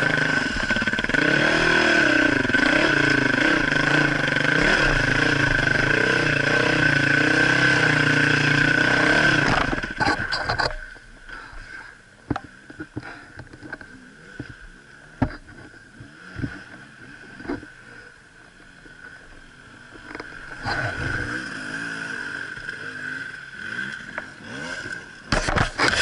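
Dirt bike engine revving unevenly, its pitch rising and falling as it labours up a rutted climb, then cutting out suddenly about ten seconds in as the bike goes down. After that, scattered knocks and scrapes of the bike being handled, a fainter engine for a few seconds, and a few loud bursts near the end.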